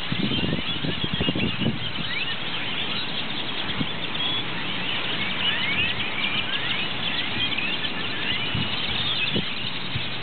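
A huge flock of purple martins calling as it gathers to roost: a dense, unbroken chorus of high chirps and short gliding notes over a low background rumble.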